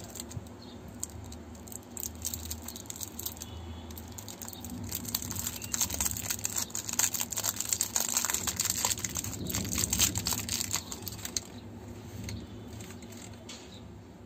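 Crinkly wrapper of a Bon Bon Bum strawberry lollipop crackling and tearing as it is peeled off by hand. The crackling is loudest and busiest in the middle and dies down near the end.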